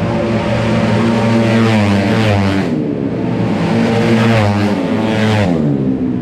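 Tuned 155cc automatic racing scooters at full throttle, two passing close by in turn, each one's pitch dropping as it goes past, over a steady drone of other engines on the circuit.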